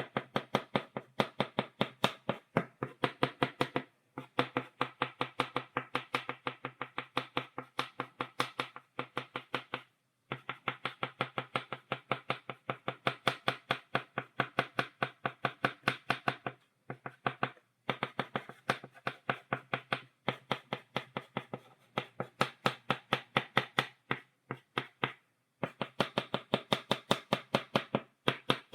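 Chalk tapped rapidly against a blackboard, dotting out a stipple drawing: quick sharp clicks at about five or six a second, in runs broken by short pauses every few seconds.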